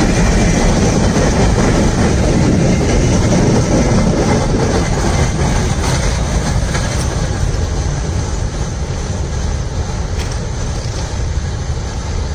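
Damaged HFE and GDE hopper wagons of a freight train rolling past close by with a loud rumbling and clanking. The noise fades over the second half as the end of the train moves away.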